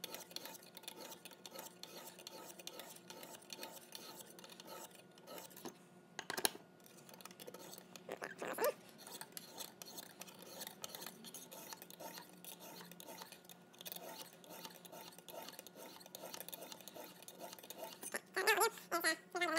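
Lansky medium-grit hone on its guide rod being stroked along a clamped knife edge: repeated light scraping of stone on steel, with a few sharper clicks as the hone meets the blade, over a faint steady hum.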